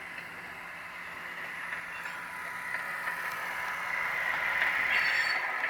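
Model caboose's Soundtraxx Soundcar playing rolling-train sounds through its small speaker as the car runs, growing louder, with a squeal building near the end.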